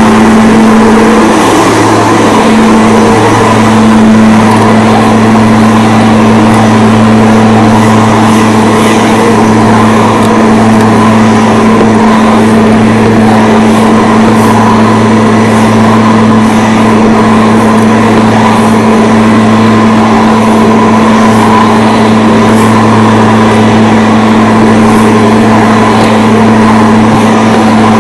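Lawn mower engine running steadily at a constant speed, loud and close, with a steady low hum and a noisy mechanical whir over it.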